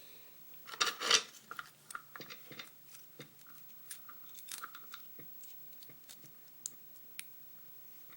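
Small metal clicks and scrapes from a lock being worked with a shim and handled on the bench. Two louder scratchy clicks come about a second in, followed by lighter, irregular ticks.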